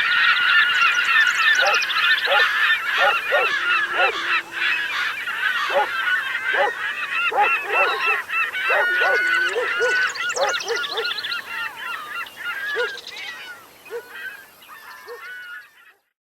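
A large flock of birds calling, with many loud overlapping calls at once; the calling thins out and fades away near the end.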